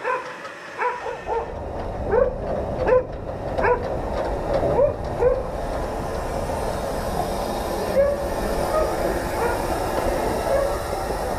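Welsh Highland Railway NGG16 Beyer-Garratt steam locomotive No. 143 running slowly past close by, a steady rumble of the engine and wheels that builds about a second in. Over the first five seconds a dog barks repeatedly.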